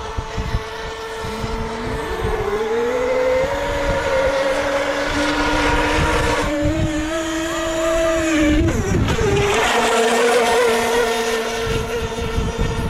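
Several 3.5cc nitro-engined RC multihull race boats running flat out, a steady high-pitched engine whine with more than one tone. About two seconds in, one engine's pitch climbs as it speeds up; about nine seconds in, its pitch drops sharply as it passes close by.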